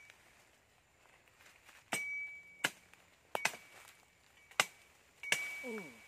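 A blade chopping into bamboo: six sharp chops starting about two seconds in, several followed by a short ringing tone. Near the end there is a brief sound that falls in pitch.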